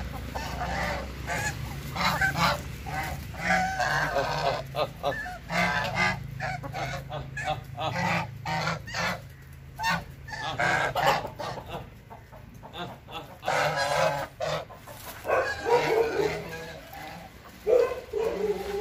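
A flock of white domestic geese honking, many calls in quick runs overlapping one another, with a short lull a little past the middle.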